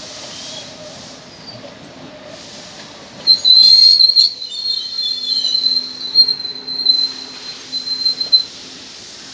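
Rhaetian Railway train running on metre-gauge track with a low rumble. About three seconds in, a loud, high-pitched wheel squeal starts, wavering and peaking for some five seconds before it dies away.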